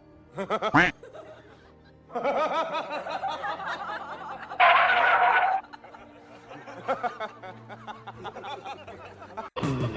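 A person laughing, with music in the background and a sharp knock about a second in.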